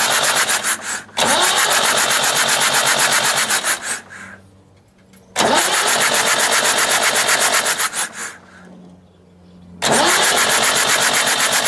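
Perkins 4.248 four-cylinder diesel turned over on its starter motor in three bursts of about three seconds each, with short pauses between, a fast, even chugging in each burst. The engine is cranked without starting, to pump fresh oil through the new filter up to the rocker-shaft oil feed.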